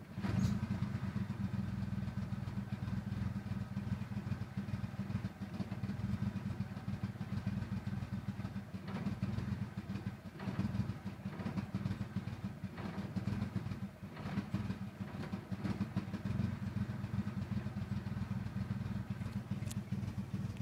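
1995 Eagle Talon TSi's turbocharged 2.0-litre four-cylinder idling roughly, its level wavering unevenly with brief dips; the cause of the rough idle is not known.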